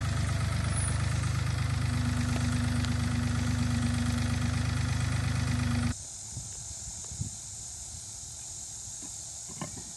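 Tractor front-end loader's engine running steadily as it drives, with a steady whine joining about two seconds in. It cuts off suddenly about six seconds in, leaving steady insect buzz and a couple of light knocks as concrete blocks are lifted from the loader bucket.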